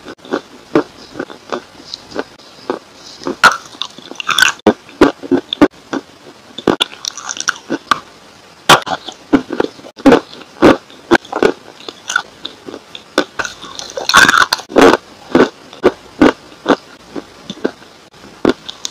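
Crisp crunching bites and chewing of a dry, chalky lump of clay, close to the mouth, with sharp crunches coming irregularly a few times a second and denser, louder clusters about four and fourteen seconds in.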